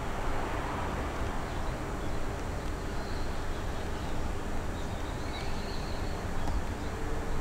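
Steady outdoor background noise with a low rumble, and a few faint high chirps around the middle.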